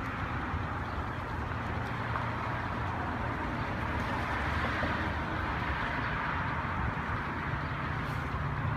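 Steady low hum of a vehicle engine idling, with an even background rush.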